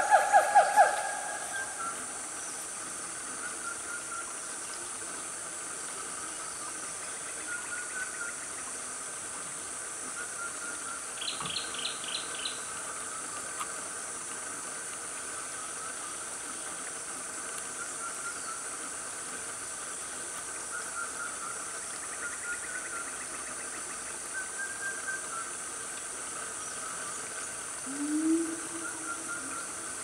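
Siamangs' loud pulsed calls end about a second in. Then comes a steady high insect drone with faint chirps and a short trill about eleven seconds in. Near the end the siamangs start up again with low rising hoots.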